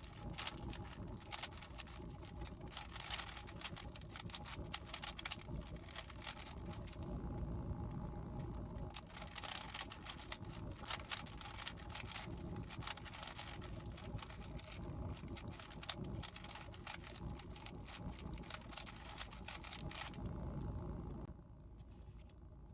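Plastic speedcube (GAN 15) layers being turned rapidly, a dense irregular run of clicks and clacks over a low steady hum; the turning stops about 21 seconds in.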